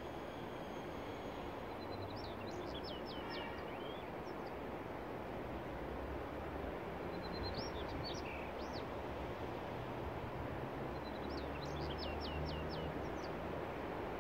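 A songbird singing three short phrases over steady outdoor background noise with a low hum. Each phrase is a brief high note followed by a quick run of notes that drop in pitch.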